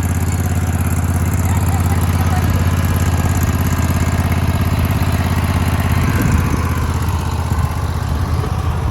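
Zero-turn lawn mower engine running with a steady hum, turning uneven and unsteady about six seconds in.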